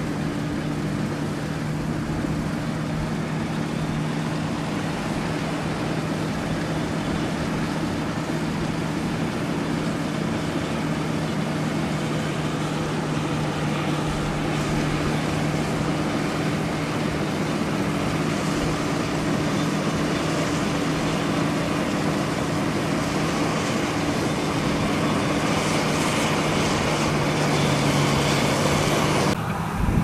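John Deere combine harvester running while cutting wheat: a steady engine hum with a constant low tone over the rushing noise of the header and threshing, slowly growing louder as it approaches. The sound changes abruptly just before the end.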